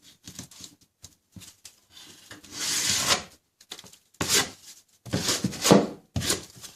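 Metal drywall knife scraping and spreading joint compound over a ceiling seam. There are several strokes: a longer smooth one about two and a half seconds in, then three sharper scrapes near the end.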